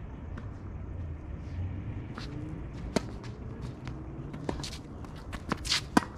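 Tennis ball struck by rackets in a rally: several sharp pops, the loudest about three seconds in and near the end, with footsteps and shoe scuffs on the court between hits.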